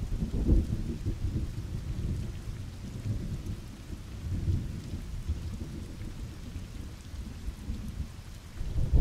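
Steady rain falling on a hard wet surface, with low thunder rumbling underneath: a strong rumble about half a second in, another swell near the middle, and a third at the end.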